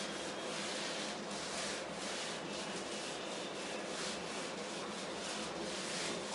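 Whiteboard eraser rubbing across a whiteboard, wiping off marker writing in steady back-and-forth strokes, about two a second.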